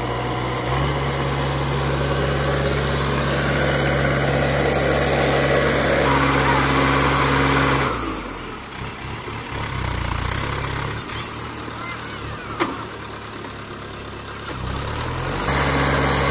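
Sonalika DI 750 tractor's diesel engine running steadily as it pulls a brick-mud mixing trailer. About halfway through the engine sound drops away and goes quieter for several seconds, with one sharp click, then comes back strong near the end.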